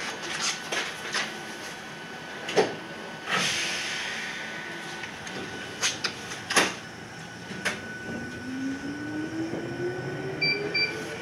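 Electric train: several sharp clacks and a short hiss of air, then a motor whine that rises steadily in pitch over the last few seconds as the train gathers speed.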